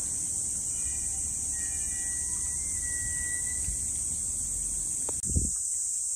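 Steady, high-pitched drone of a summer cicada chorus over a low rumble, with a short knock about five seconds in.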